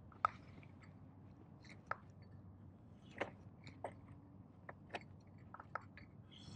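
Faint, irregular clicks and ticks, about a dozen spread unevenly, from a spinning reel and rod handled by a gloved hand as the reel handle is slowly cranked on a slow retrieve.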